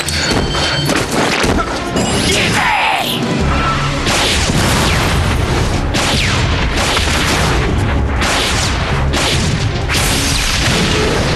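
Cartoon battle sound effects of blasts and booming impacts over dramatic action music.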